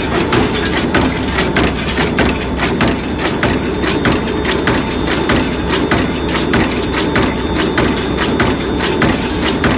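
Cold forging machine (cold header) running as it forms cylindrical needle bearing rollers. A fast, regular clatter of forming strikes, several a second, sits over a steady drone from its motor and drive.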